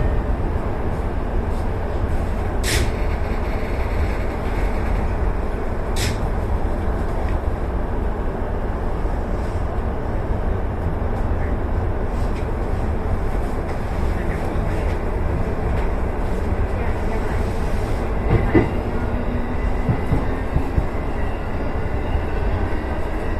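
Electric commuter train running at speed, heard from the front of the train: a steady rumble of wheels on rail, with two sharp clicks in the first six seconds and a brief knock about eighteen seconds in.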